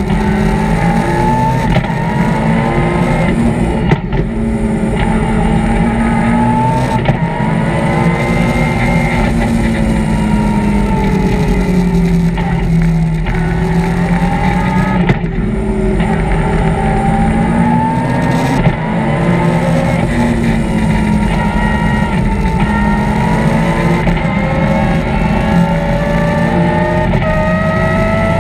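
BMW M3 rally car's engine at full effort, heard from inside the cockpit, its pitch rising and falling as the car accelerates, brakes and changes gear through the bends, with a few brief drops in sound at the shifts.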